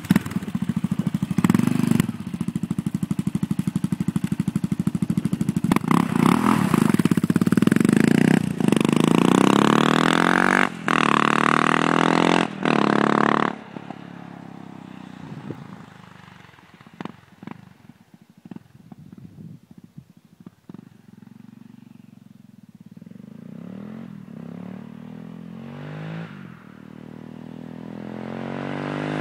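Yamaha XT 660 single-cylinder engine through a GPR aftermarket exhaust, running loud and revving up with rising pitch, broken twice by short gaps. About thirteen seconds in it drops away sharply and fades, then grows louder again near the end.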